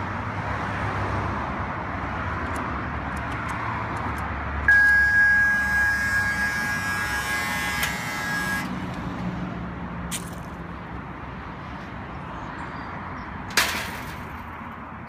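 Pedestrian gate's electric lock release buzzing steadily for about four seconds, the sign that the gate has been unlocked for entry. Then a click, and near the end a sharp metal clank as the steel gate shuts and latches, over steady street traffic.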